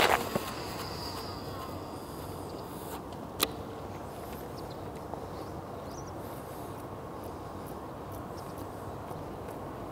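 A cast with a Shimano Tranx baitcasting reel: a swish at the start, then the spool whirring and falling in pitch as it slows over a second or two. A single sharp click comes about three and a half seconds in, over steady outdoor background noise.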